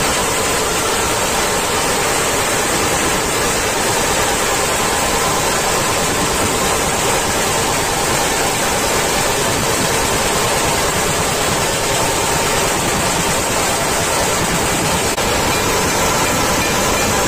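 Dhol-tasha troupe drumming: dhol drums and tasha played together in a dense, steady wall of sound.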